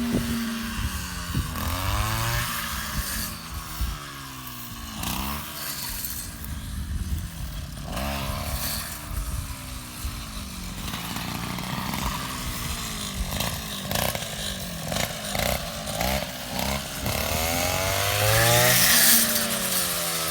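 Rice harvester's engine running, its pitch rising and falling again and again as the machine works through the rice.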